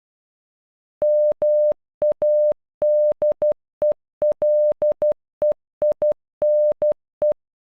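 Morse code beeps: a single steady mid-pitched tone keyed on and off in short and long beeps, starting about a second in, spelling "MADELEINE" (-- .- -.. . .-.. . .. -. .).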